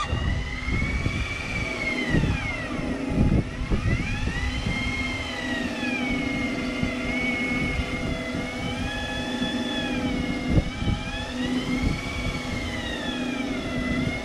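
Fishing reel screaming with a big fish on the bent rod: a whine that sinks and rises in pitch every few seconds, over a steady low engine hum.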